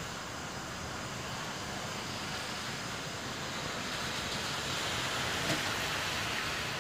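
Steady outdoor hiss of a snow-covered street. It swells from about four to six seconds in as a car drives along the wet, slushy road.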